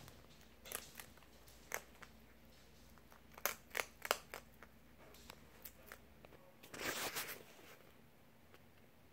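Fennec fox crunching kibble and mealworms in irregular sharp bites, with a quick run of crunches about three and a half seconds in and a longer, noisier stretch about seven seconds in.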